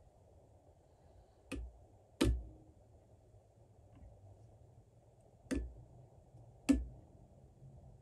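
Four sharp metallic clicks, irregularly spaced, from a torque wrench and armorer's wrench as pressure is applied to tighten an AR-15 castle nut.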